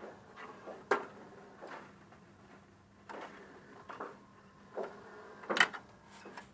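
Jukebox record-changing mechanism working: irregular mechanical clicks and clacks, a sharp one about a second in and the loudest about two-thirds of the way through, over a faint steady motor hum.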